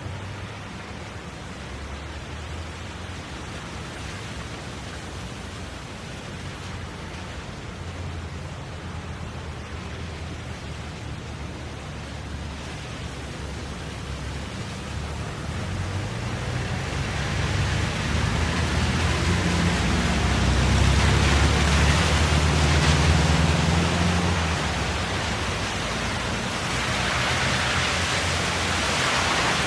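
Traffic on a wet road: a steady hiss of tyres on wet tarmac over a low engine rumble. It builds up in the second half as a vehicle passes close, eases off, then swells again near the end.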